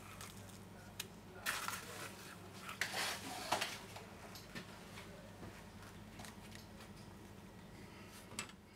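Faint rattling and clinking of iron filings being sprinkled, in a few short bursts with scattered clicks, over a steady low hum.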